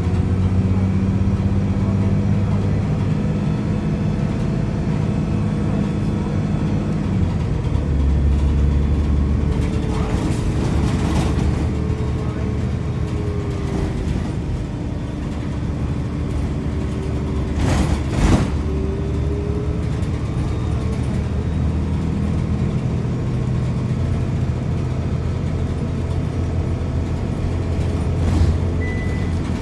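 City transit bus's engine and drivetrain heard from inside the passenger cabin while riding: a steady low drone whose tone changes about seven seconds in. A whine rises and falls a few times, and there is one sharp knock about eighteen seconds in.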